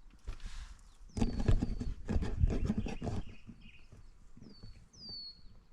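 Knocking and rustling about a second in that lasts some two seconds and is the loudest sound, with a few short high chirps that slide down in pitch near the start and again near the end.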